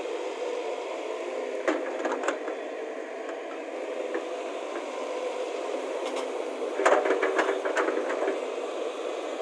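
Excavator engine running steadily, thin and without bass, with a few sharp knocks about two seconds in and a quick cluster of clanks around seven seconds.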